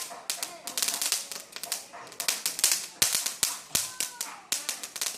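Fireworks crackling: a rapid, irregular stream of sharp pops and snaps.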